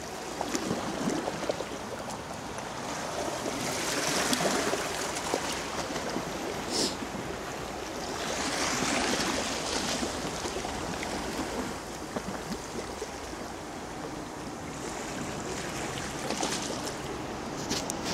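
Sea waves washing against a rocky shore, swelling up twice, about four and nine seconds in, over a steady wash with wind on the microphone. A few small clicks stand out.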